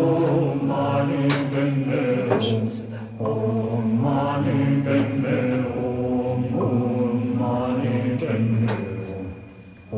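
Chant-like vocal music with sustained held notes in long phrases, the first ending about three seconds in and the second fading near the end.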